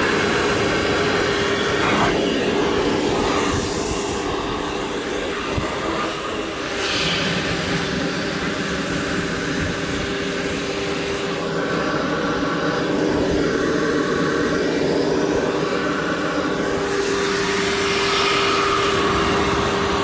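Small Bauer shop vac running in blower mode, its hose pushing air through a hot tub's pump and jet plumbing to clear out leftover water before winter. The motor gives a loud, steady whine that weakens a little through the middle and comes back near the end.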